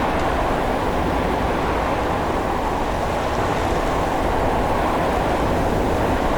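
Strong wind sound effect: a steady, dense rush of wind noise with most of its weight in the low and middle range, holding an even level throughout.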